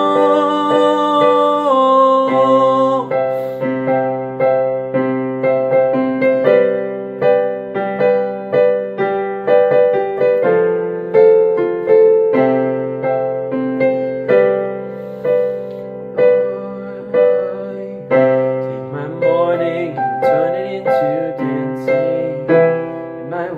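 Piano playing a slow worship chord progression, with each chord struck and left to ring, about one a second.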